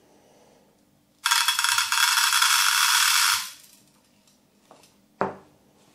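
Steel shot from a 3½-inch Gamebore Mammoth Magnum steel cartridge (a 42-gram load) pouring out of the cut-open hull into a metal tin: a dense, steady rattle of many small pellets lasting about two seconds. A single knock follows about five seconds in.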